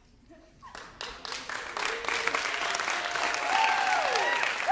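Audience clapping that starts about a second in and swells into full applause, with a few rising-and-falling cheers near the end.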